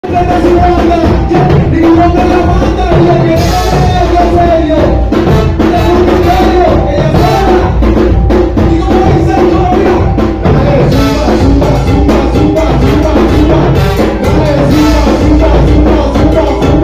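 Loud Latin dance music with a strong bass and drums keeping a steady beat under a melody line.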